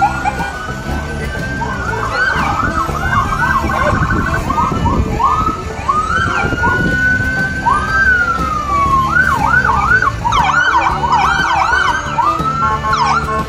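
Several emergency-vehicle sirens sounding at once, overlapping slow rising-and-falling wails that change to fast yelps about ten seconds in.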